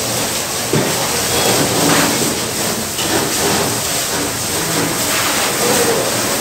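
Fire hose spraying water in a steady, loud rushing hiss.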